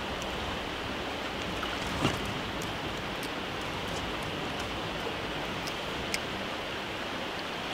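Steady rush of flowing river water, with one faint knock about two seconds in.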